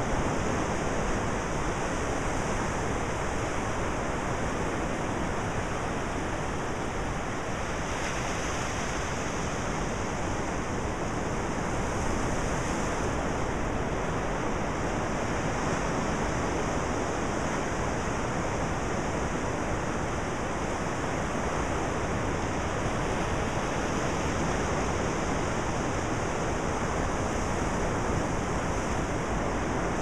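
Ocean surf: low waves breaking and washing up a flat sandy beach, heard as a steady rushing hiss with no single crash standing out.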